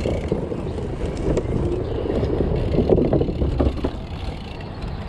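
Wind buffeting the microphone of a camera riding along on a road bike under way, an uneven low rush.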